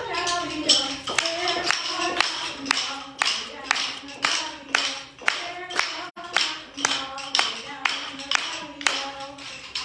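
Hand clapping in a steady beat, about two claps a second, along with a voice singing a children's song.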